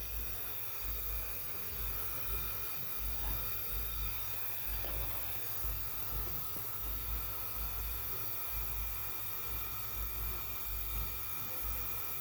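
A steady machine hum with several held tones and a faint hiss, over an irregular low rumble.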